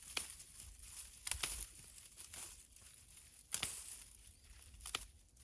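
Zinnia plant stalks and leaves rustling and crackling as the plant is handled and pulled up, with a few sharp crunches spread through.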